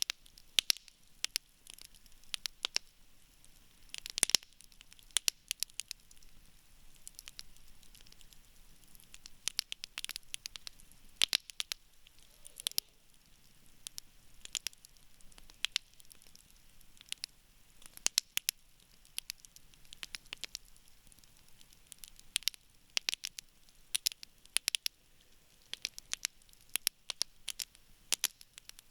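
Wood campfire burning, with sharp, irregular crackles and pops over a faint hiss.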